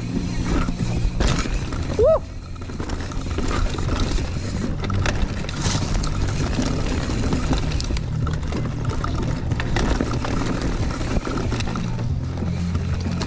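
Mountain bike riding down a dirt trail: continuous rushing wind and trail noise on the bike-mounted camera, with music playing underneath. A brief rising squeak cuts through about two seconds in.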